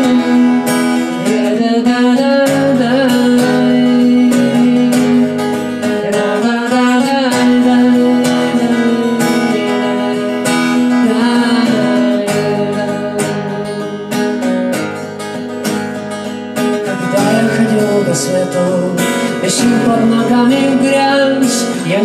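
Acoustic guitar strummed through an instrumental break between verses of a song, with a melody line sliding in pitch above it.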